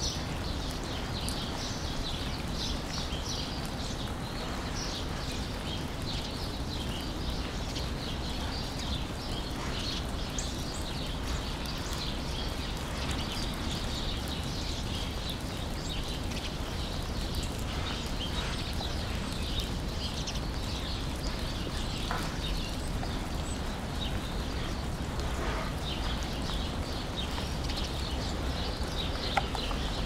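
Outdoor ambience: a steady low rumble under a constant flurry of high-pitched chirps from small birds.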